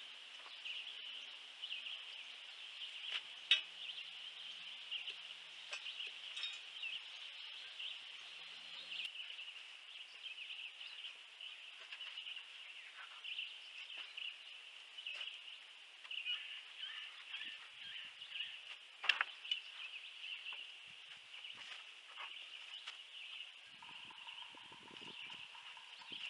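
Outdoor ambience: a steady high-pitched chirring, with scattered knocks and clunks of lumber as a board and post are set in place under a planter box; a faint steady hum comes in near the end.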